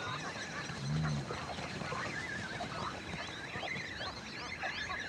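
A large flock of wetland birds calling, many overlapping chirps and squawks. A single deep, low sound rises and falls about a second in.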